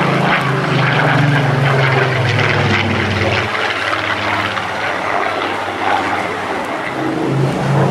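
Supermarine Spitfire's Rolls-Royce V12 piston engine and propeller droning overhead, the note dropping in pitch during the first few seconds as the plane flies away.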